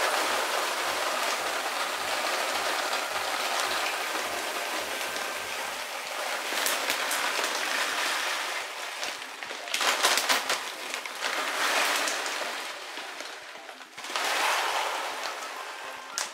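Plastic bag of dry dog food rustling and crinkling as it is handled, a continuous noisy rustle for the first six seconds, then in uneven surges.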